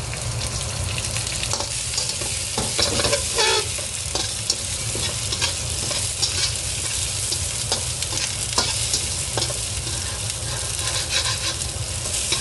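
Onions, ginger and garlic sizzling in hot oil in a cast iron wok while a metal wok spatula stirs and tosses them, its strokes scraping and clicking against the wok.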